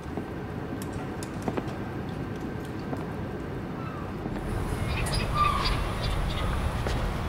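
Low steady background noise with scattered clicks; about four seconds in it turns into outdoor ambience with short bird calls and faint voices.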